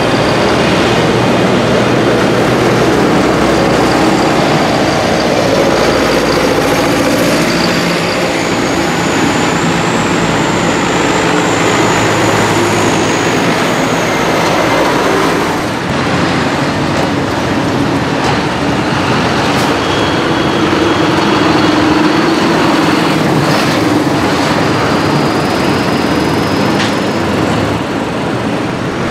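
Diesel engines of modern farm tractors (New Holland and John Deere) running steadily as they drive past one after another. The sound changes abruptly about halfway through.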